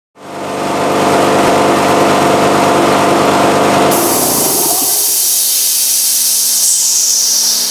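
Ingersoll Rand SS4 air compressor pump running under load. A little under four seconds in, the motor shuts off and winds down while a loud hiss of air starts: the pressure switch has reached cut-out, about 125 psi, and the unloader is venting the pump's head pressure. The hiss tapers off near the end. The compressor is running again after new head gaskets fixed it.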